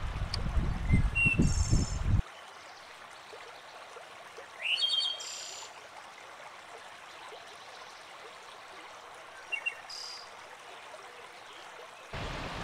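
Small birds chirping in short, rising calls, a few times, over the steady rushing of a shallow rocky stream. A loud low rumble covers the start and stops about two seconds in, then returns near the end.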